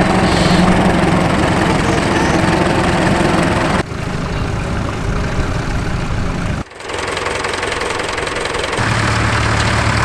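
Vintage tractor engines running steadily under load as they pull ploughs through stubble. The sound changes abruptly twice, as a different tractor is heard each time.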